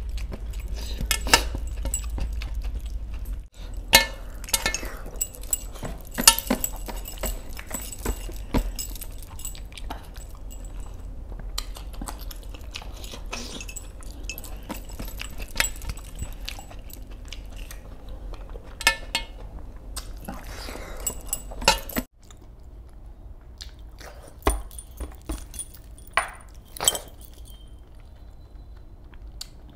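Close-up eating sounds: a person chewing and biting fish eaten by hand, with scattered sharp clinks and jingling of metal rings and bracelets against a steel platter. It goes quieter from about two-thirds of the way in.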